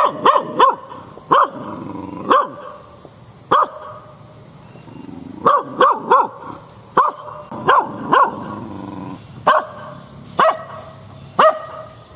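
Small dog barking repeatedly: about fifteen short, sharp barks at uneven spacing, some in quick runs of two or three.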